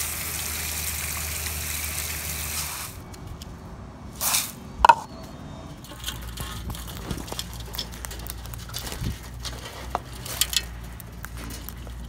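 Water spraying steadily, cutting off suddenly about three seconds in. Then two sharp knocks about a second apart, and scattered light clicks and taps over a low steady hum.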